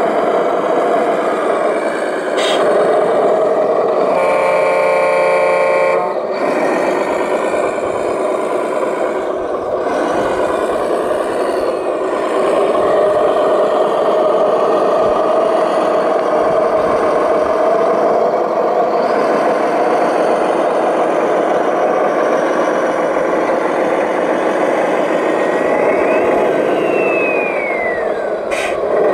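Radio-controlled model heavy trucks driving, with a steady engine drone throughout. A truck horn sounds for about two seconds about four seconds in. Near the end a whine rises and then falls.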